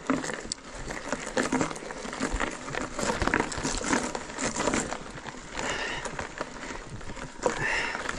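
Mountain bike going along a narrow, rough singletrack: a continuous jumble of crackling, rustling and knocking from tyres, stones and brush.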